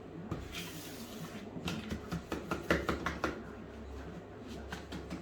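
Wet, pasted wallpaper being pushed and crumpled by hand around a pipe: a soft rustle, then a run of irregular small crackles and taps.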